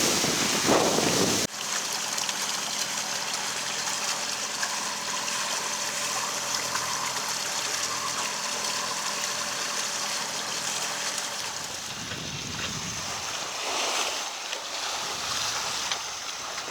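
Steady rush of wind and water around a sailing yacht. About a second and a half in the sound drops abruptly to a quieter, even rush with a faint steady hum.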